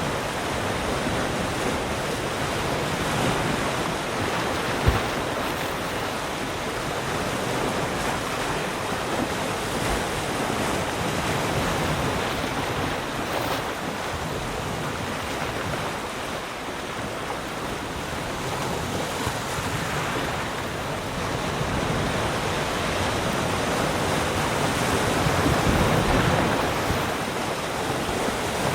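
Sea surf: waves breaking and washing ashore in a steady rush that swells and ebbs slowly every several seconds, with one brief low thump about five seconds in.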